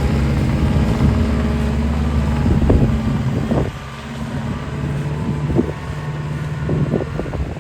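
2017 JCB 260T skid steer's diesel engine running steadily, dropping in level about three and a half seconds in, with several metallic clanks and knocks through the second half.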